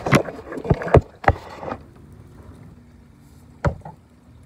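Knocks and bumps of gear being handled in a kayak: a quick run of about four sharp knocks in the first two seconds, then one more near the end, over a faint low rumble.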